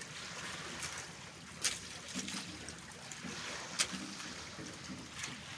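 Steady wash of sea water around a small outrigger fishing boat, with water trickling as a wet gill net is hauled in. Two sharp clicks come about a second and a half and nearly four seconds in.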